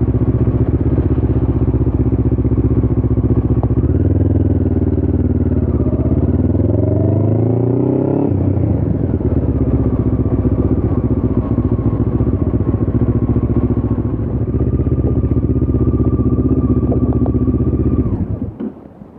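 Motorcycle engine running, rising in pitch for about four seconds and dropping sharply, then running steadily. Near the end it cuts off abruptly as the engine is shut off.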